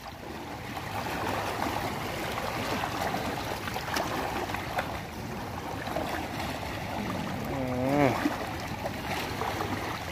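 Shallow seawater washing and splashing over rocks as a person wades through it, with a short vocal sound from a person about eight seconds in.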